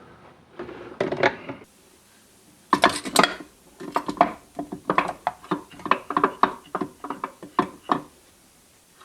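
Steel and friction clutch plates of a 700R4 transmission's low reverse clutch pack clinking against each other and the case as they are pulled out: a brief soft scrape, then a quick string of light metal clinks lasting about five seconds.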